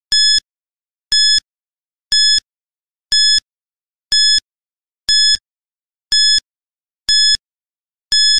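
Countdown timer sound effect: a short high-pitched beep once a second, about nine in a row, counting down the seconds left to answer.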